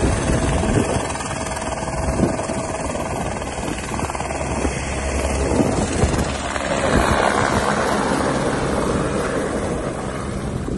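Helicopter lifting off at close range and flying away, its rotor and turbine running loud and steady. Rotor wash is blasting snow against the microphone.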